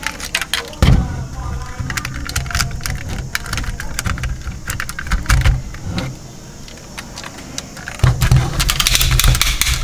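Plastic toy crane truck being handled, its cab tipped forward and back: a run of sharp clicks and rattles of plastic parts, with heavier knocks about a second in and again near the end.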